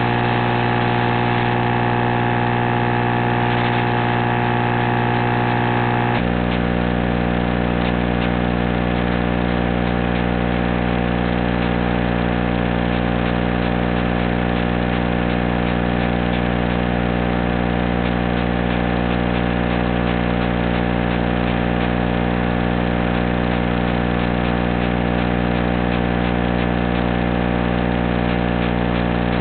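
Steady electronic buzz from an analog FPV video link recorded by the goggle DVR, a fixed set of pitched tones rather than the drone's motors. About six seconds in the buzz jumps abruptly to a different, lower-set pattern and then holds steady.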